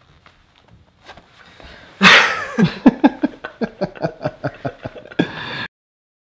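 Faint rustling of clothes at first, then a sudden loud outburst and a run of short bursts of laughter, each dropping in pitch, about four a second, which cuts off abruptly near the end.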